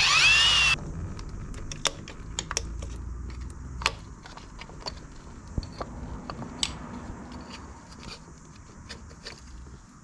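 AEG cordless drill spinning out a bolt and stopping under a second in. Then a string of small, sharp metal clicks and scrapes as a screwdriver pries at the bolted cover on the engine's drive shaft housing.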